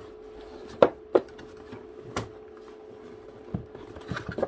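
Cardboard packaging inserts being handled inside a laptop box: sharp knocks and taps of cardboard, two close together about a second in, another near two seconds and a quick cluster near the end, over a steady faint hum.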